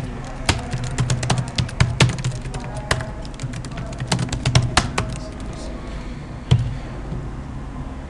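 Typing on a computer keyboard: a quick run of key clicks that thins out after about five and a half seconds to a couple of single keystrokes.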